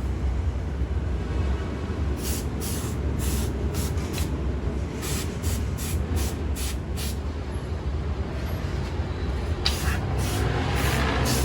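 Repair-shop noise: a steady low rumble with two runs of short, sharp bursts, several a second, one starting about two seconds in and one near the end.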